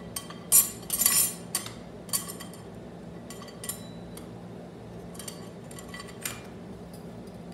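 Turbo 400 transmission clutch plates, steels and frictions, clinking metal on metal as they are set one by one into the clutch drum. A cluster of clinks comes about half a second to a second and a half in, then single clinks every second or so, over a steady low hum.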